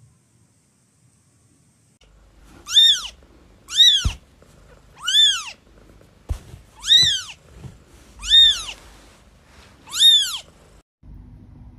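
A young tabby kitten mewing: six high, thin mews about a second and a half apart, each rising and then falling in pitch. Two soft low bumps fall between the calls.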